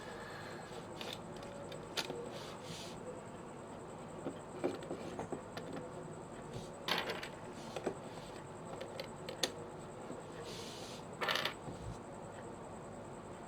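Plastic pieces of a MoFangGe 5x5 puzzle cube clicking and clattering as they are handled and fitted onto the partly rebuilt cube: scattered light clicks, with louder clatters about halfway through and near the end.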